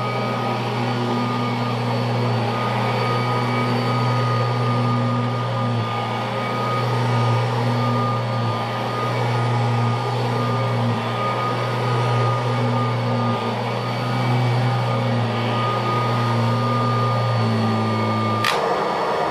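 Kirby Legend II upright vacuum cleaner running on carpet with a newly fitted drive belt: a steady motor hum with a thin whine above it, running reasonably well. Near the end it is switched off with a click and the motor starts to spin down.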